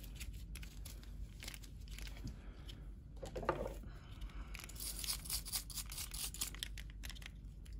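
Toothbrush bristles scrubbing the plastic housing and metal contacts of an old Mercedes power seat switch to clean off corrosion, a rapid scratchy rasp of many short strokes starting about five seconds in, after softer cloth rubbing.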